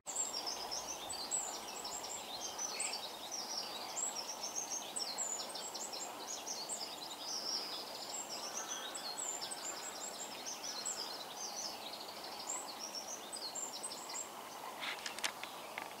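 Common starling singing: a dense, rambling run of high chirps, whistles and clicks over steady background noise, stopping a couple of seconds before the end, followed by a few sharp clicks.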